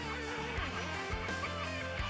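Background music: a guitar-led song.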